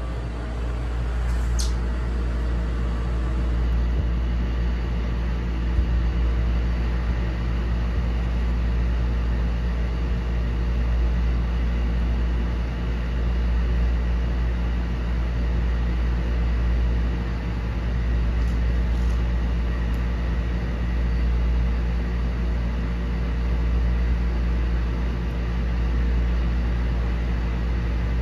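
Aquarium canister filter running steadily, drawing surface water in through a multi-surface skimmer intake: a constant low hum.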